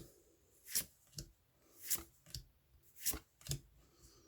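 Pokémon trading cards being slid and flipped one at a time by hand: about six short, soft swishes of card against card, coming in three pairs.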